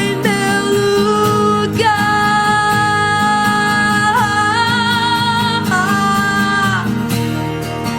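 Worship music: a singer holding a few long notes, sliding between them, over a steady guitar-led accompaniment.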